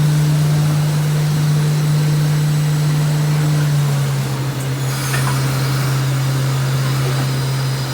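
Citizen L-20 CNC Swiss-type lathe running, a loud steady low machine hum whose pitch steps down slightly about four seconds in, with a brief rush of higher noise about five seconds in.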